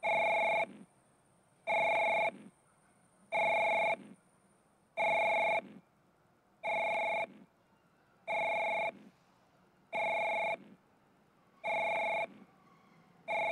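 Station platform train-approach warning tone: a steady electronic chime of several pitches sounding for under a second, repeating about every 1.7 seconds, signalling a train arriving at the platform.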